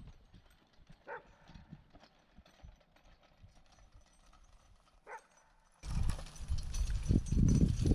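Harnessed horse walking while being ground-driven, her hooves giving soft thuds on grass and dirt, with two brief squeaks about a second in and again near five seconds. About six seconds in it turns much louder: heavy thumping close to the microphone with a steady hiss.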